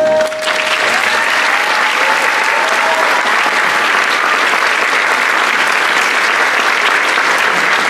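The held final chord of a women's choir fades out in the first half second, and an audience applauds steadily.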